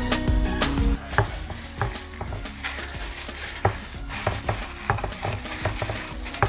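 Salt pouring onto raw pork ribs in a glass baking dish: a soft steady hiss with scattered small ticks of grains hitting the meat and glass. Background music fades in the first second.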